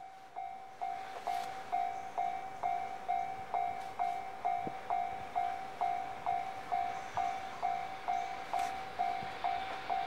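Japanese level-crossing warning bell ringing its steady electronic "kan-kan" tone at about two strikes a second, warning of an approaching train. It grows louder over the first second.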